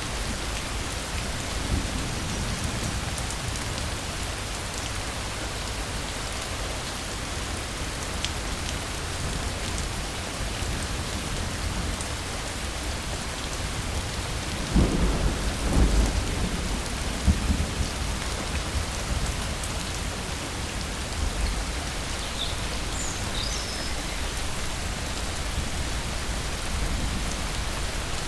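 Steady heavy rain hissing, with a low rumble of thunder about halfway through that swells and fades over a few seconds.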